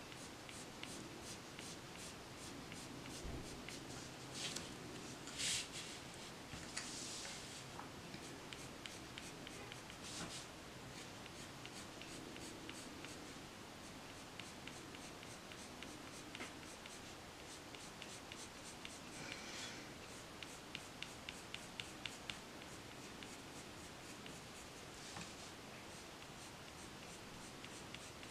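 Prismacolor colored pencil scratching on paper in short flicking strokes, faint and steady, now and then a louder stroke.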